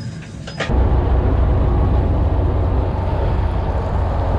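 Boat's Detroit 60 Series diesel running under way, a loud, steady low rumble with water rushing along the hull; it cuts in suddenly about half a second in.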